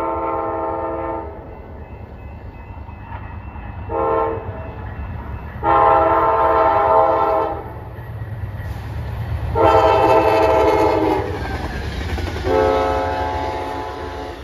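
Amtrak passenger train's multi-note air horn sounding a series of blasts, a long one, a short one about four seconds in, then three more long ones, as it approaches a grade crossing. Under the horn runs the rumble of the train, growing as the double-deck cars roll past near the end.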